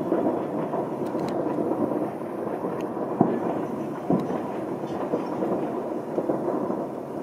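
Distant New Year fireworks: a continuous rolling rumble of overlapping bangs, with two sharper, louder bangs about three and four seconds in and a few faint crackles.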